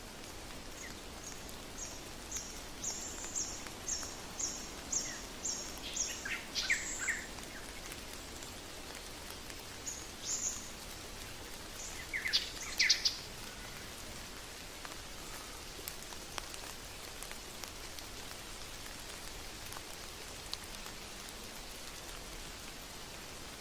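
Steady rain with a bird calling over it: a run of high repeated notes, about two a second and growing louder, over the first seven seconds, ending in a few lower sweeping notes, then two more short calls about ten and thirteen seconds in.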